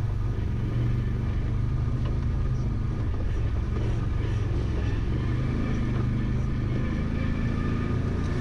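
Vehicle engine running steadily at an even speed, with faint ticks and rattles over it.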